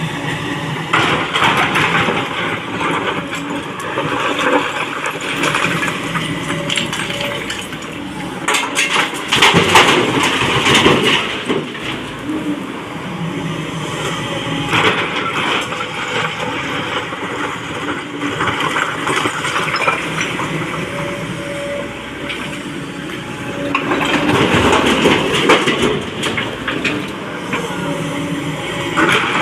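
Excavator loading a dump truck: a steady heavy-machinery engine noise with two louder, rough spells, one about nine seconds in and another around twenty-four seconds.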